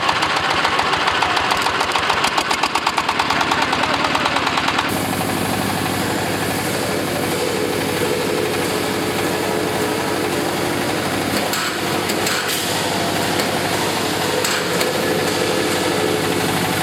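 Engineering drilling rig's engine running under load: a fast, regular knocking for about the first five seconds, then an abrupt change to a steadier, smoother running sound.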